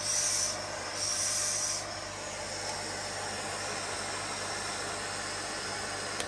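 Neakasa P0 Pro pet grooming vacuum running steadily with its brush head, drawing loose hair into the dust cup; in about the first two seconds the sound grows louder twice as the brush is drawn through the cat's fur.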